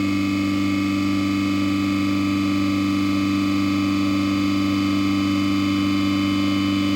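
Dorin KP1500CS semi-hermetic piston refrigeration compressor running on test with a steady, even hum that holds constant throughout.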